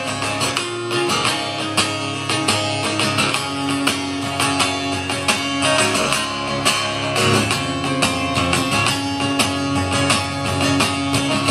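Acoustic guitar strummed in a steady rhythm over sustained low notes, with no singing: an instrumental break in a live song.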